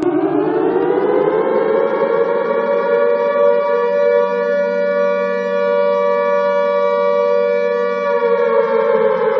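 Alarm siren wailing on two close pitches at once. The pitch climbs over about the first two seconds, holds steady, and begins to fall again near the end.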